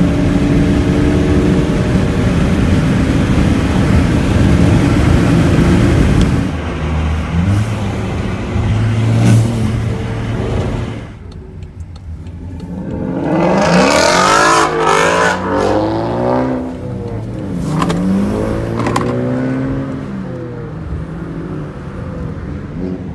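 Car engines at full throttle in a street race: dense engine and road noise at first, then a quieter stretch near the middle, followed by several rising sweeps of engine pitch as a car accelerates hard through the gears.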